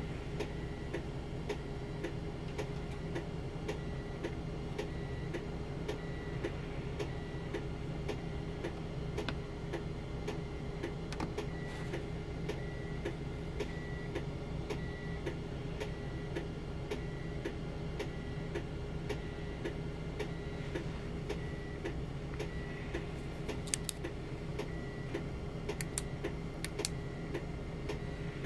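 Steady, even ticking, about two ticks a second, each with a faint short high beep, over a constant low hum. A few sharper clicks come near the end.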